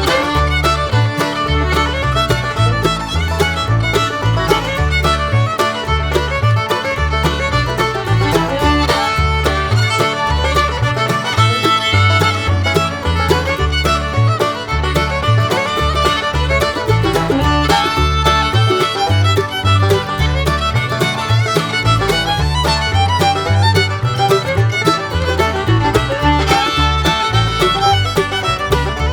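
Background music: a fiddle-led bluegrass-style tune over a steady bass beat.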